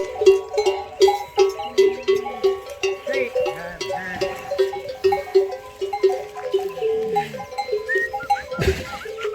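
Metal bells hung on camels' necks clanking over and over, about three ringing strikes a second as the animals move. Birds chirp over them.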